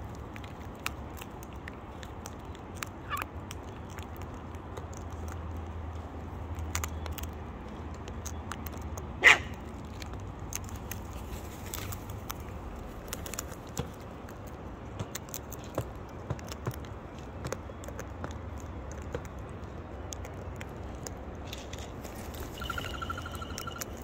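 Sulphur-crested cockatoos feeding on seed from a hand-held plastic cup: scattered small clicks and crackles of beaks on the cup and seed being cracked, over a steady low rumble. One short, loud sound stands out about nine seconds in.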